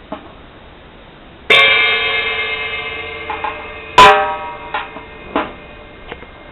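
A drum-kit cymbal struck once about a second and a half in and left ringing, then hit harder about four seconds in, followed by a couple of lighter taps as the ring dies away.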